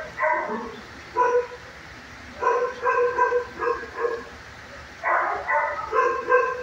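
A dog barking and yipping in high, pitched calls, coming in four bunches with short quiet gaps between.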